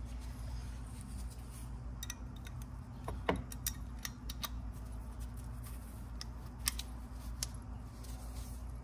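Scattered small metallic clicks and taps from hand tools working a spark plug in the engine bay, irregularly spaced, the loudest about three seconds in and again near seven seconds. A steady low hum runs underneath.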